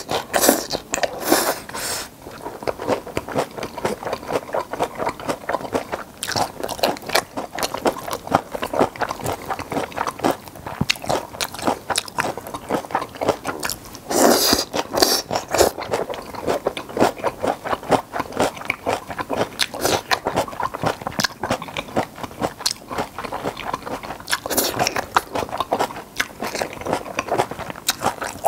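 Close-miked chewing and slurping of gochu japchae, stir-fried pepper strips eaten with chopsticks: a steady run of wet crunchy bites and mouth clicks, with a louder slurp of strands about halfway through.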